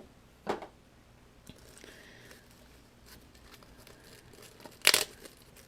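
Cardboard box and its packaging being handled by hand: a few brief rustles and knocks, the loudest a sharp crackle near the end.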